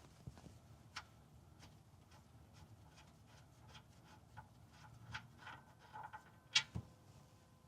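Faint, irregular small clicks and taps, with one sharper click about six and a half seconds in.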